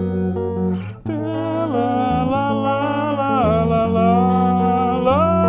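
Archtop guitar played solo: a held chord, a short break about a second in, then a melody of long held notes that slides down twice and climbs back up near the end, over a steady low chord.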